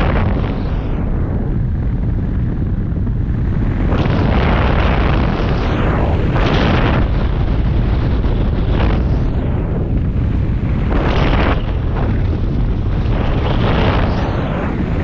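Airflow buffeting the microphone of a camera mounted on a hang glider's wing in flight: loud, steady rushing wind noise that swells and eases every few seconds.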